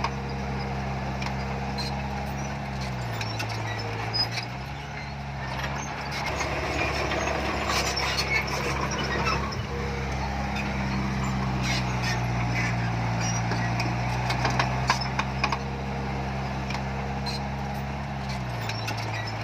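Heavy diesel engine of an earthmoving machine running steadily, its pitch dipping twice as the revs fall and pick up again, with scattered clanks and knocks over it.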